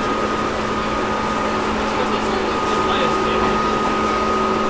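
Tobu 10000-series electric train running between stations, heard inside the motor car above the main controller: a steady rumble from the running gear, with the air conditioning running and a thin steady high tone.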